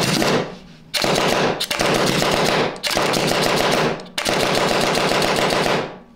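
Single-trigger Nova N3 Hellion mechanical paintball marker fired as fast as the trigger can be ripped, on air alone with no hopper fitted. It comes in five quick strings of rapid pops with short breaks between, the last string the longest.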